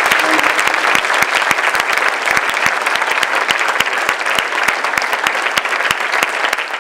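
Audience applauding: many hands clapping densely and continuously, easing off slightly near the end.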